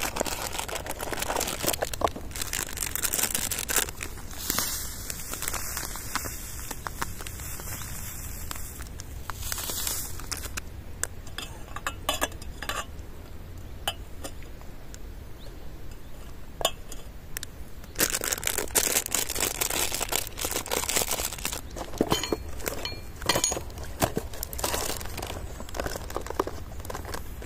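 Crinkling and rustling with scattered clinks of camp cookware being handled while making tea, coming in irregular spells of several seconds.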